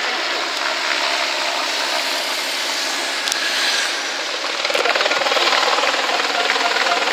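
Race traffic going by: a jury motorcycle passes ahead of the approaching bunch of road cyclists. The noise grows louder about four and a half seconds in and takes on a fast, even flutter as the riders come closer.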